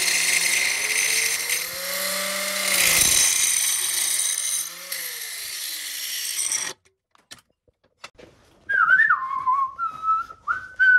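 Angle grinder cutting through steel plate: a high motor whine over the screech of the disc on metal, cutting off suddenly about seven seconds in. Near the end, someone whistles a tune in short stepped notes.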